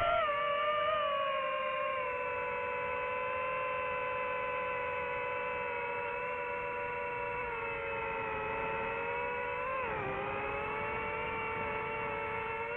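DJI FPV drone's four motors and propellers whining steadily in flight. The pitch falls just after the start, dips sharply about ten seconds in as the throttle eases, then climbs back.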